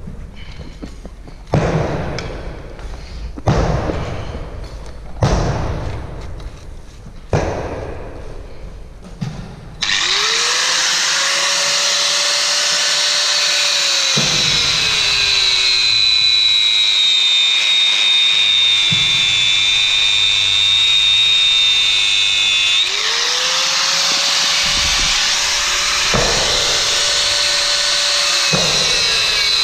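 A few loud knocks in the first ten seconds. Then an angle grinder starts and cuts steel reinforcement bar, throwing sparks. Its whine drops in pitch as the disc bites into the steel, rises again when the disc is eased off about two-thirds of the way through, and drops once more as it cuts again near the end.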